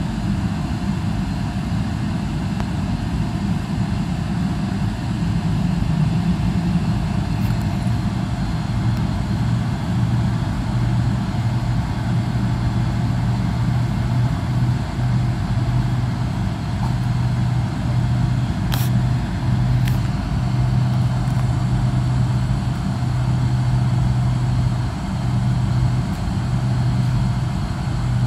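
Cabin noise inside a Boeing 777-300ER moving slowly on the ground: a steady low hum and rumble. Two brief clicks about two-thirds of the way through.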